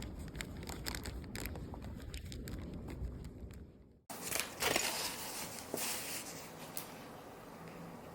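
Light handling noises: a string of small clicks and rustles, broken about halfway by a short drop to silence, then a few more clicks and rustles that die down to a faint steady background.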